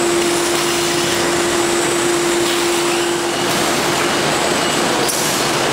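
Packaging-line machinery running: a steady, dense mechanical rush with a steady hum that fades out about three and a half seconds in, and a brief hiss near the end.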